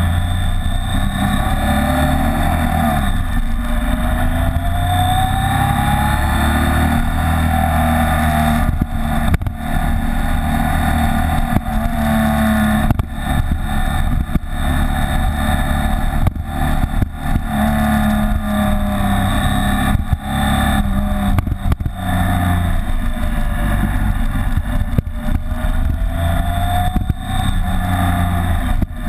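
BMW K75's inline three-cylinder engine running under way on the motorcycle, its pitch rising and falling several times as the revs go up and down.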